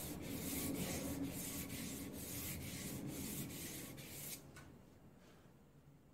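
Hand-sanding the primer-coated rim of a spoked wagon wheel, sandpaper rubbing in quick back-and-forth strokes about two a second. The sanding stops about four seconds in.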